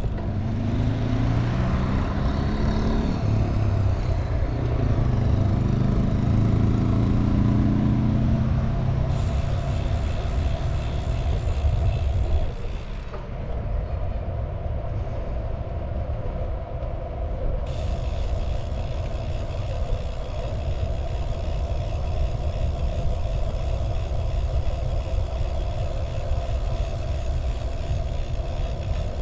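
A vehicle running. For the first twelve seconds its motor rises and falls in pitch, then it settles into a steady rumble with a constant hum.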